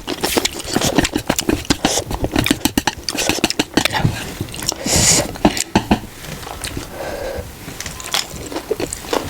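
A person chewing food close to the microphone, with many quick wet mouth clicks.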